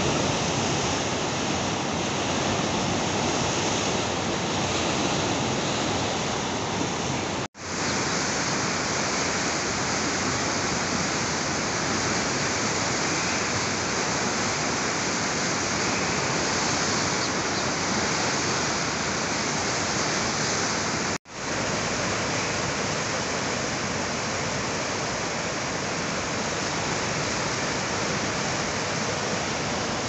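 A swollen, muddy river in flood rushing past in a steady, loud wash of water noise. The sound cuts out for an instant twice, about a quarter of the way in and again about two-thirds of the way through.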